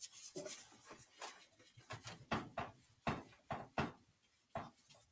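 A dry-erase whiteboard being wiped clean with an eraser: a quick, irregular run of short rubbing strokes, about two or three a second.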